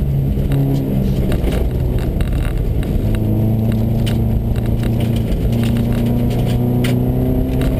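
Subaru rally car at speed on a snowy gravel stage, heard from inside the cabin: the flat-four engine pulls hard, its note shifting in steps about three seconds in and again near six seconds, over a steady low road rumble with frequent sharp clicks of gravel and stones striking the car and cabin rattles.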